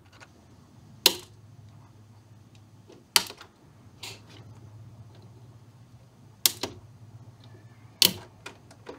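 Flush-cut pliers snipping the over-long wire leads on an amplifier's eyelet board: about five sharp, separate snips at irregular intervals, over a faint steady low hum.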